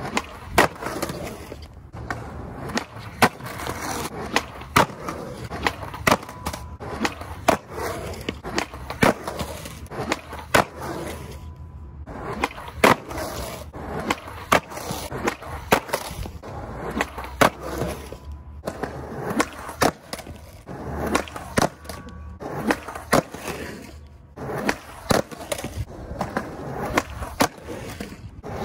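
Skateboard on concrete: wheels rolling, with a run of sharp tail pops, clacks and landing slaps from repeated ollie attempts. The sound breaks off abruptly several times.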